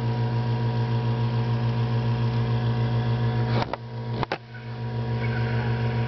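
Nebulizer compressor pump humming steadily, pushing air through a homemade smoke generator for a vacuum-leak smoke test. About three and a half seconds in come two knocks, and the hum briefly drops.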